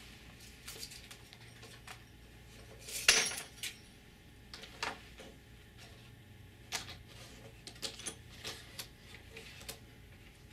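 Improvised percussion: sparse clicks and clinks of small hard objects handled on a tabletop, with one louder clattering rattle about three seconds in.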